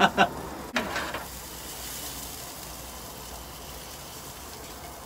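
Mushrooms sizzling in oil in a frying pan on a portable gas stove, a steady hiss, while they are tossed in the pan.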